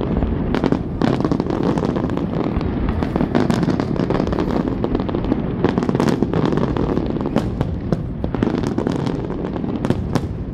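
Aerial fireworks display: a dense, continuous low booming of shell bursts, with many sharp cracks and crackles throughout.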